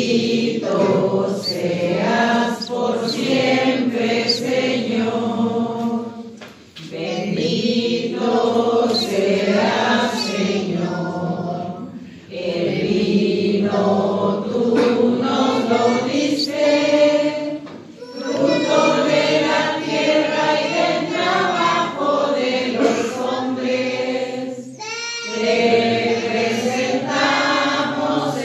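Choir or congregation singing an offertory hymn at Mass, in phrases of about six seconds with short breaths between them.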